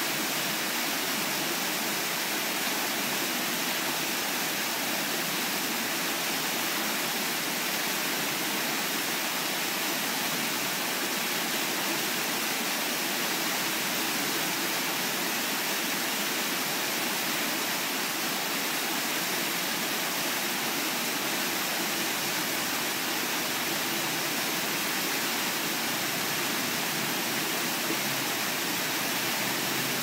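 Water from a small man-made waterfall rushing steadily down a rocky channel, an even, unbroken splashing hiss.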